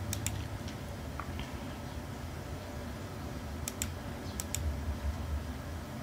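Computer mouse clicking, three pairs of sharp clicks: one at the start and two about four seconds in, with a few fainter ticks between, over a low steady hum.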